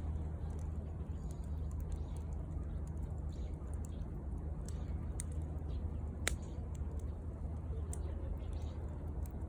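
Wood fire crackling, with scattered small snaps and pops over a steady low background noise and one sharper snap about six seconds in.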